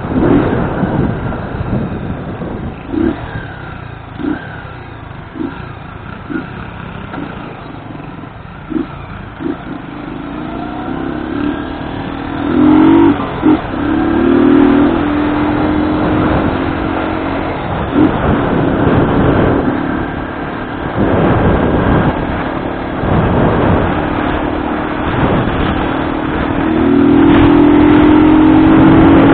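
Motorcycle engine running and revving while riding, with wind rushing over the microphone; the engine note is held steadier and louder in the second half.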